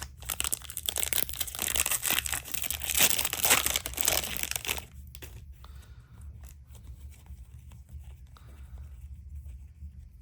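Cellophane wrapper of a trading card pack being torn open and crinkled for about five seconds, then softer rustling and faint clicks as the cards are handled.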